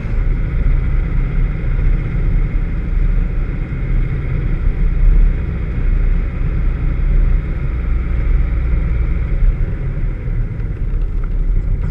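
Vauxhall VX220 running steadily, a dense low rumble of engine and road noise with no clear rise or fall in revs; the car has a misfire.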